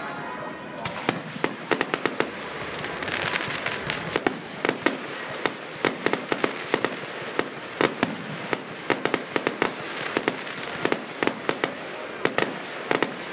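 Aerial fireworks shells bursting in rapid, irregular succession: many sharp bangs and pops, often several a second, over a constant background haze of noise.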